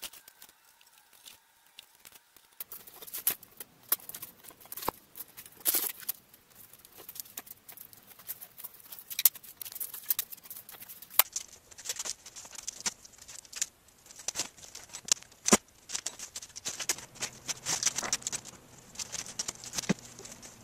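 Packing tape being pulled off the roll and pressed onto a foam box, a run of crackling and sharp clicks and taps from the tape and handling, denser in the second half.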